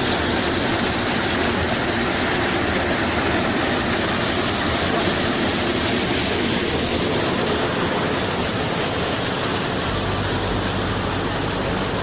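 Steady roar of a waterfall, an even rush of falling water with no breaks. About ten seconds in, a deeper low rumble joins it.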